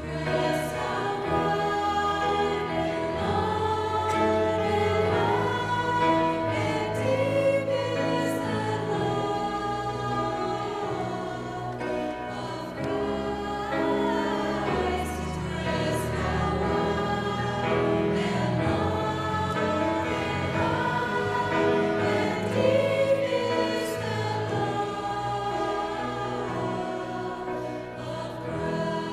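A women's vocal ensemble singing a gospel song together, accompanied by piano.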